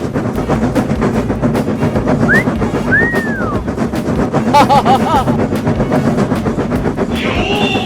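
Busy cartoon soundtrack mix: a fast clattering rhythm over a dense rumble, with a rising-and-falling whistle glide about two and a half seconds in and a short warbling cartoon sound about five seconds in.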